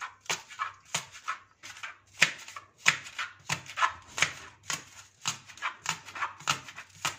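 Knife slicing spring onions on a cutting board: a quick, even run of crisp cuts, about three to four a second, each stroke knocking against the board.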